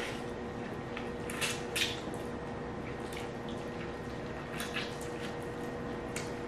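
Wet mouth sounds of people sucking and chewing sauced chicken feet: scattered smacks and slurps, the loudest about a second and a half in, over a faint steady hum.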